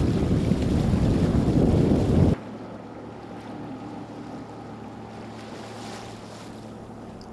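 Wind buffeting the microphone over rushing water as the sailboat moves through chop. About two seconds in it cuts abruptly to a much quieter scene with a steady low drone, the boat's engine running as it motors over calm water.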